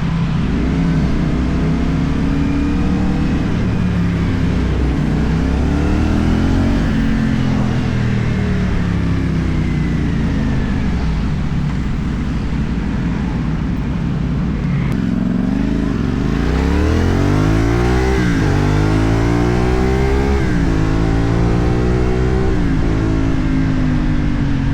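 CFMoto 450NK's parallel-twin engine through a LeoVince aftermarket exhaust, accelerating through the gears under way. The pitch climbs and falls back at each shift, with a hard pull and a quick run of upshifts in the second half.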